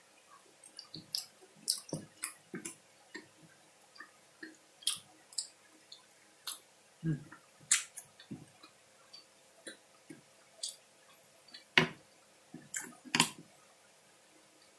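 Close-miked mouth sounds of a man chewing soft kerupuk basah (temet): irregular wet smacks and clicks, with a few louder knocks near the middle and toward the end.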